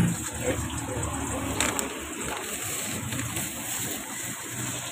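Steady hiss of tahu aci deep-frying in hot oil, with a brief rustle about one and a half seconds in.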